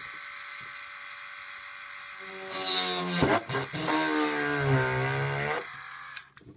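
Small electric drill whining, running freely at first, then louder with its pitch dragging down as it bites into the thin Lexan body plastic, before winding down near the end.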